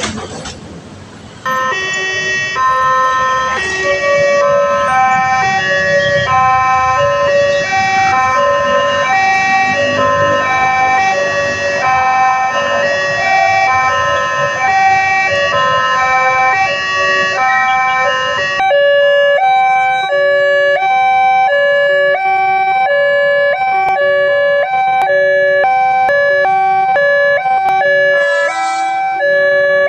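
Electronic warning siren of a railway level crossing sounding, a repeating pattern of stepped tones switching between a few pitches. It starts abruptly about a second and a half in, over traffic noise that thins out about two-thirds of the way through.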